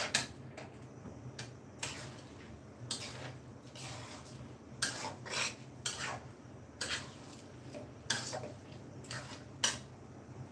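Metal spatula scraping and clinking against a karai (wok) in irregular strokes, stirring raw rice into the masala and potatoes for bhuna khichuri, over a steady low hum.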